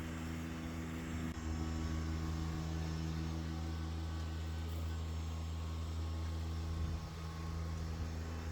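A steady low mechanical hum, like a motor or engine running at an even speed, with a slight change in tone about a second in.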